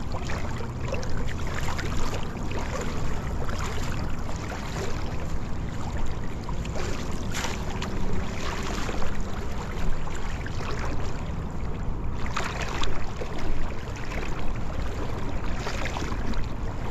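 Water sloshing around the legs of a person wading through shallow river water, with a few louder splashes.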